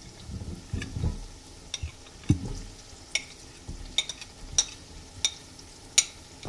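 Sliced tomatoes tipped into an aluminium pot of chicken frying in masala, with soft thuds as they drop in and a light sizzle. Sharp clicks repeat about every two-thirds of a second.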